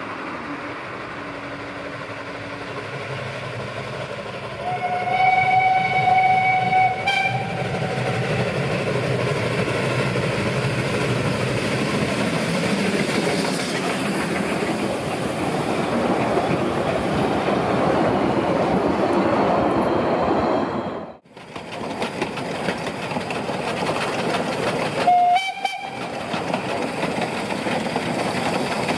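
Saxon IV K narrow-gauge steam locomotive 99 608 sounds one long whistle blast of about two seconds, about five seconds in. The steady running clatter of the engine and its wooden coaches rolling past follows. After a break near the end, the whistle gives one short blast.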